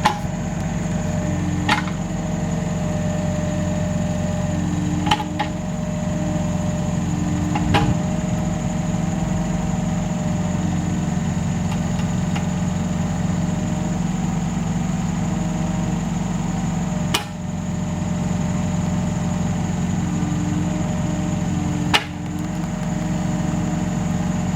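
An engine running steadily, with five sharp knocks at irregular moments.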